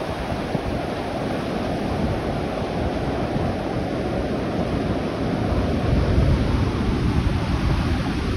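Ocean surf breaking and washing up the beach, with wind buffeting the microphone; the rush swells a little louder about six seconds in.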